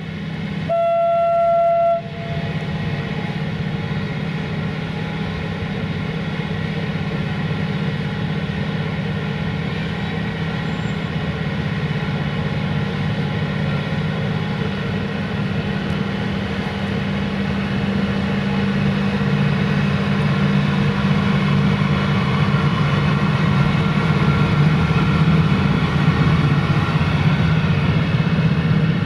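A 060-EA electric locomotive gives one short horn blast of about a second, then its steady droning hum carries on as it rolls slowly past, growing gradually louder in the second half.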